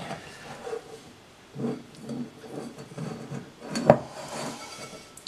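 Risen bread dough being worked loose and lifted out of a glass bowl by hand: soft rubbing and scraping against the glass, with one sharp knock about four seconds in.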